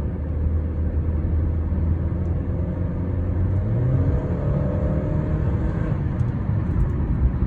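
Honda Civic X's 1.5-litre turbocharged four-cylinder engine pulling the car, its note rising from about halfway through as it accelerates. It is running on a half-and-half mix of high-octane and regular petrol, with no knocking.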